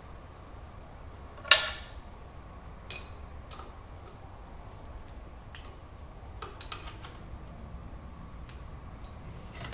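Metal-on-metal clanks and clicks as the Aciera F1 milling machine's spindle is fitted and tightened into its vertical support: one sharp, ringing clank about a second and a half in, then a few lighter taps and clicks.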